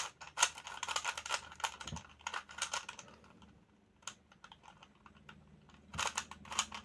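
Classic Rubik's Cube being turned fast in a speedsolve, its plastic layers clacking in quick runs of clicks; the cube is very clunky. The turning thins to a few scattered clicks for a few seconds in the middle, then fast clicking picks up again near the end.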